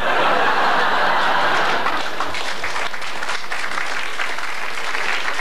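Studio audience applauding: dense clapping that starts abruptly, is strongest for the first couple of seconds and then eases off slightly.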